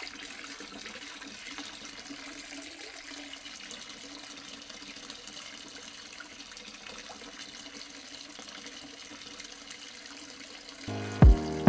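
Tap water running steadily and splashing into a basin. Music with a strong beat comes in near the end.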